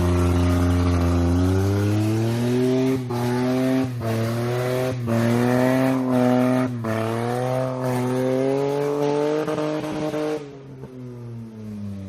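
Car engine revved hard and held at high revs, with several brief cuts in the note. About ten and a half seconds in, the revs drop and the note falls away.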